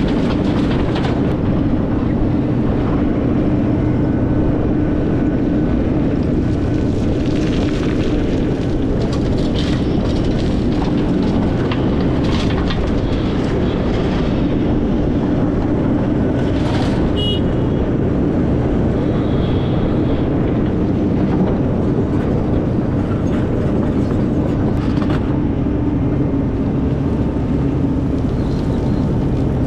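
Takeuchi TB2150 excavator's diesel engine running steadily under load, with scattered knocks and clanks.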